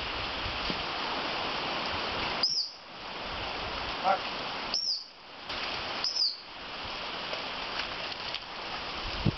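Three short, high pips of a gun-dog training whistle, spread over about four seconds: whistle commands to a retriever being handled. Under them is a steady rushing hiss.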